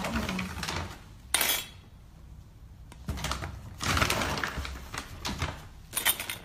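A cat's food bowl clattering on a hard floor amid rustling, in irregular bursts with a short sharp clatter about a second and a half in.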